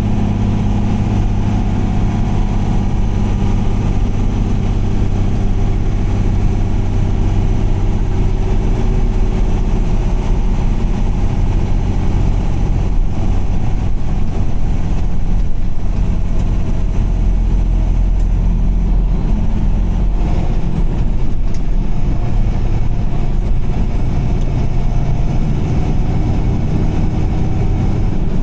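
Car driving at a steady speed on a highway: a continuous engine drone with road noise.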